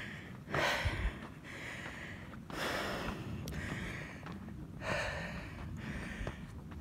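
A man breathing heavily and rhythmically, about one breath in or out every second, out of breath from climbing a steep sand dune on foot.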